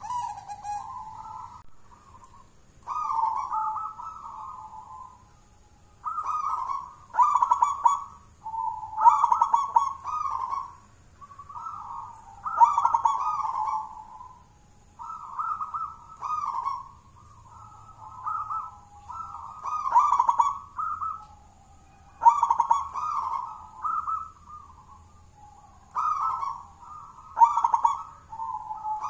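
A zebra dove (perkutut) cooing its rolling, trilled song: a phrase of about one to two seconds comes roughly every two seconds, with short pauses between.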